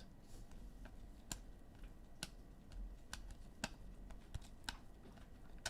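Trading cards being handled on a table: light, irregular clicks and taps, about one or two a second, as cards are flipped through and set down.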